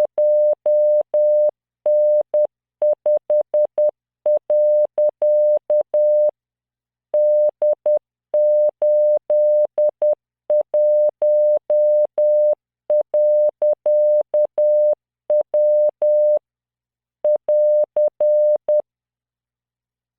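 Computer-generated Morse code: a single 600 Hz beep keyed on and off in dots and dashes at 10 words per minute, sending random five-character practice groups, with short pauses between groups. The keying stops near the end.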